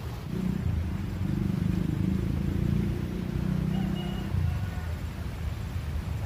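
Low rumble of motor traffic, louder for the first four seconds or so and then easing off.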